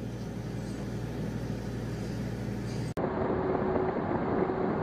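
A steady low hum that cuts off abruptly about three seconds in, followed by the road noise of a car driving through a tunnel, heard from a dashcam, with a steady tone running through it.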